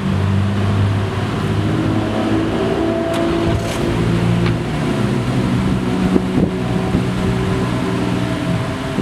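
BMW M240i's 3.0-litre inline-six engine idling steadily.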